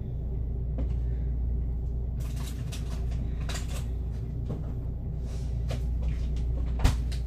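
Kitchen cupboard and items on the counter being handled: a run of clicks and knocks starting about two seconds in, with one sharper knock near the end, over a steady low hum.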